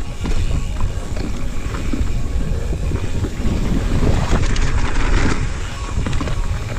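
Mountain bike riding fast down a dirt trail, heard from a bike-mounted camera: wind buffeting the microphone and the rumble of knobby tyres on dirt, with frequent short clatters from the bike over bumps.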